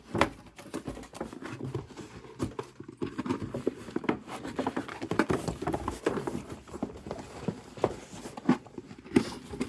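Box and packaging insert being tugged and handled: irregular rustling, scraping and knocking as the controller insert is worked loose from the box.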